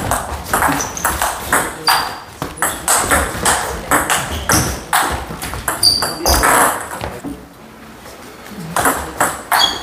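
Table tennis rally: the celluloid-type ball clicking off paddles and table about twice a second, then a pause of over a second before new clicks start as the next point is served.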